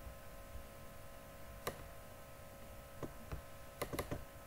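Scattered computer mouse clicks, a single one about two seconds in and a quick cluster near the end, over a faint steady electrical hum.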